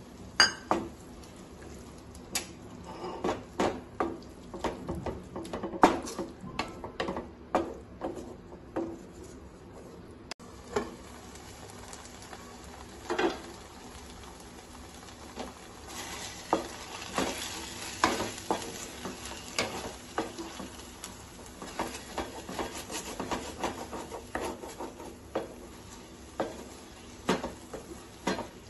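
Wooden spatula stirring wet laai saag (mustard greens) in a non-stick pan, with repeated short knocks and scrapes against the pan and the greens sizzling underneath. The stirring is busiest from about 16 to 20 seconds in.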